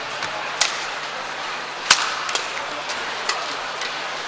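Badminton rally: a few sharp racket strikes on the shuttlecock, irregularly spaced, the loudest just before two seconds in. Under them runs a steady background hiss from the hall.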